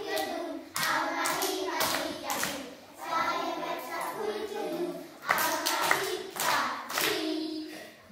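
A class of young children singing a Flemish folk song together, with sharp hand claps between and over the sung phrases.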